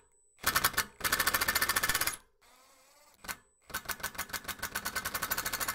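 Impact wrench with a small socket hammering rapidly on a motorcycle wheel's spoke nipples to undo them, in several bursts: a short one, a longer one of about a second, a brief blip, then a long run of about three seconds.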